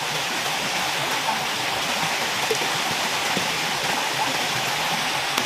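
Small waterfall splashing into a rocky stream pool: a steady rush of falling water.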